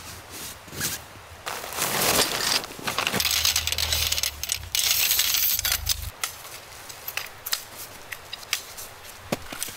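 Aluminium tent poles clinking and clattering against each other as the bundle is handled, with rustling of the nylon pole bag. After about six seconds, scattered sharp clicks follow as shock-corded pole sections are unfolded and snapped together.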